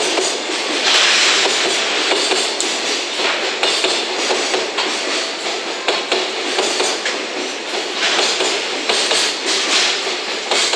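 Container flat wagons of a JR Freight train (Koki 104 and Koki 106 types) rolling past steadily at speed, their wheels clacking over the rail joints.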